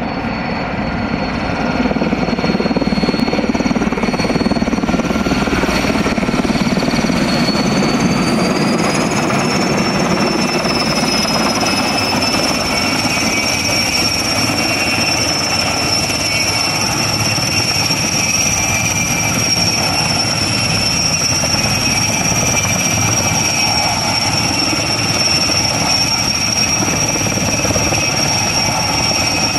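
Sikorsky/Erickson S-64 Air-Crane firefighting helicopter hovering low over water with its snorkel down, its twin turbine engines and rotors running loud and steady. It grows louder over the first couple of seconds, and a high turbine whine rises in pitch about eight to ten seconds in, then holds.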